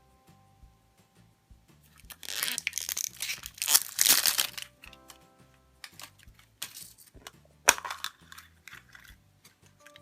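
Plastic packaging being torn open and crinkled in loud rustling bursts, heaviest about two to four seconds in, with shorter crinkles later, over soft background music.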